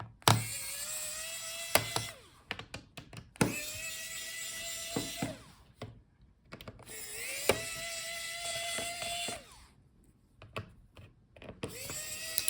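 A small electric screwdriver runs in three bursts of about two seconds each, with a fourth starting near the end. Each burst is a steady whine that rises briefly as it starts, as it backs out the laptop's bottom-case screws. Sharp clicks of the bit and screws fall between the bursts.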